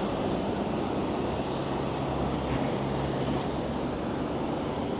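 Steady road traffic noise from a busy city main road, with a low hum that comes and goes in the middle.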